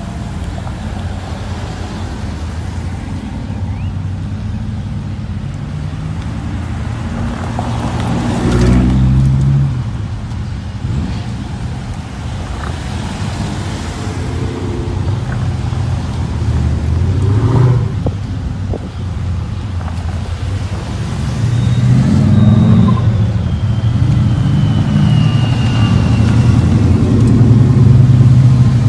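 A convoy of big-engined American cars and pickups, among them a Jeep Grand Cherokee Trackhawk, a Dodge Challenger and Dodge Ram trucks, rolling past one after another at low speed with their exhausts rumbling. A louder rev comes about nine seconds in, and the engines grow louder again in the last third as more vehicles pass close by.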